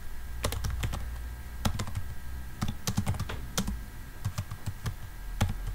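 Typing on a computer keyboard: a run of uneven, closely spaced key clicks.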